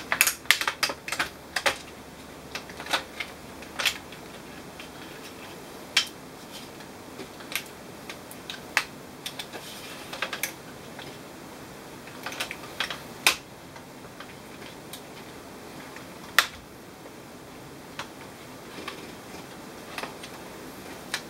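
Plastic clicks and knocks from the HP G60 laptop's case being handled and pried apart. The clicks are thick in the first couple of seconds and then come scattered, with one sharp loud click about two-thirds of the way through.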